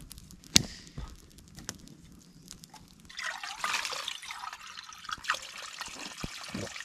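Spring water running from a small pipe, trickling and splashing into a cup and onto wet ground, starting about three seconds in. Before it, a single sharp click less than a second in.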